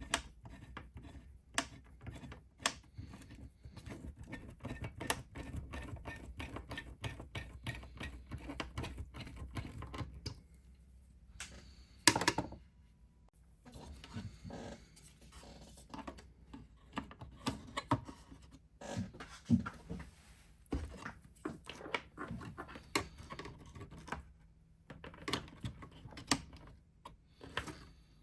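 Small clicks, taps and scrapes of metal and plastic parts being handled while working inside a desktop computer, thick and quick for the first ten seconds, with one louder knock about twelve seconds in and scattered clicks after.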